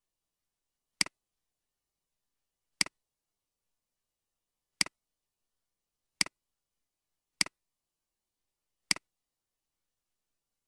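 Computer mouse clicks: six sharp clicks a second or two apart, each a loud click followed at once by a softer one, like a button press and release, with dead silence between.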